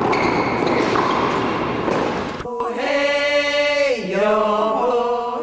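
Title music for a TV show opening: a loud noisy swell, then about two and a half seconds in a single voice holds a high sung, chant-like note that dips in pitch and rises again near the end.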